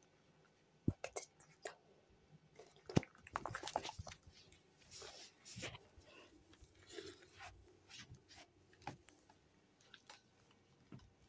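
Faint handling noises: scattered light knocks and clicks with a few short bursts of rustling, as a plush puppet is picked up and moved about.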